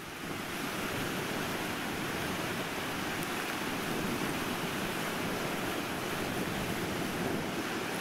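Rough Sea of Azov surf breaking on a rocky shell beach: a steady, even rush of waves.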